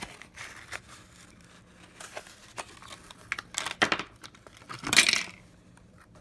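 Lighter packaging being opened by hand: crinkling and tearing with scattered clicks, and the loudest rustle about five seconds in.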